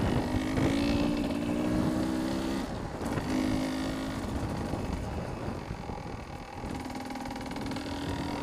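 Beta 300 RR two-stroke enduro motorcycle being ridden along at a steady pace. The engine note dips briefly about three seconds in and changes again near the end, with wind noise on the helmet-mounted microphone underneath.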